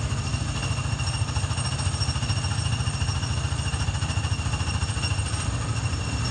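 Small gasoline engine of a Tomorrowland Speedway car running steadily with a rapid low pulsing, heard from the car's own seat as it creeps forward slowly.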